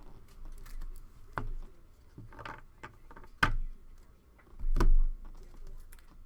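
Trading cards and packaging handled on a table: light rustling and a few sharp knocks, the loudest about three and a half and five seconds in, the last with a dull thud.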